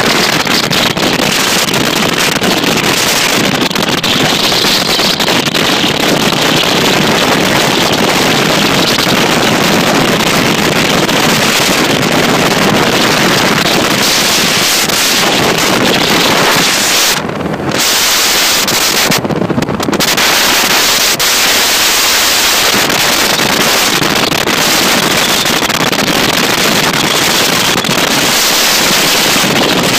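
Champion bass boat with a Mercury outboard running at speed, heard as a steady wind blast on the microphone over the engine and hull noise. The wind briefly lets up twice about two-thirds of the way through.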